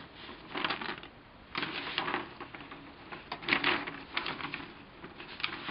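Several short crinkly rustles of a paper instruction booklet being handled and its pages turned.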